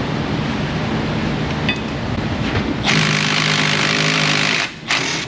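Pneumatic power tool on a rear brake job, running in one loud burst of nearly two seconds about three seconds in and stopping abruptly, breaking loose a stuck rusty part.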